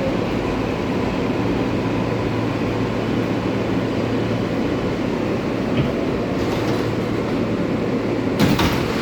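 Steady running and ventilation noise inside an R143 subway car, with a short sharp burst of noise near the end.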